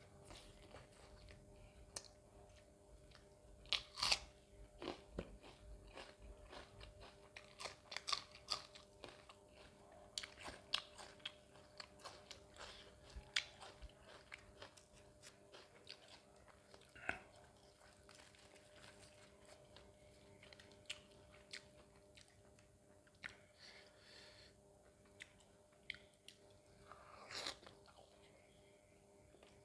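Close-up chewing and biting of mutton curry and roti: irregular wet mouth clicks and smacks with some crunching, over a faint steady hum.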